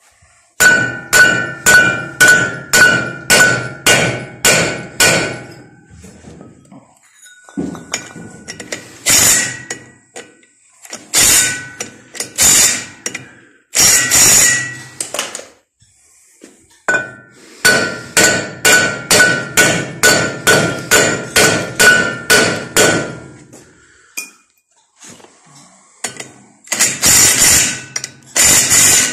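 Hammer striking metal in runs of quick blows, about two a second, each with a ringing note. Between the runs come scattered single blows, and a few harsher blows fall near the end.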